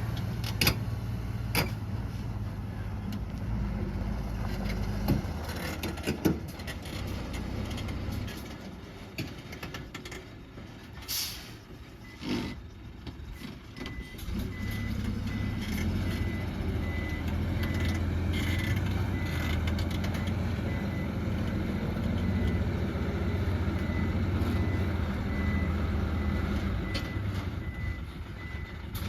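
Heavy diesel dump truck engine running, dipping in the middle and then running steadily again, with a reversing beeper sounding repeatedly through the second half. A few sharp knocks and short hisses, like air-brake releases, come in the first half.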